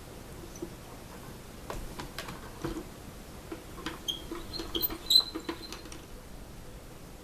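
Light clicks, taps and scratches of small parts being handled, here the new and old mandolin nuts being fitted against each other. A sharper click about five seconds in rings briefly.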